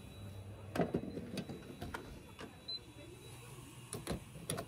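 Footsteps on concrete at a gas pump, then the clicks and knocks of a fuel nozzle being handled and pushed into a pickup's filler neck near the end, over a low steady hum.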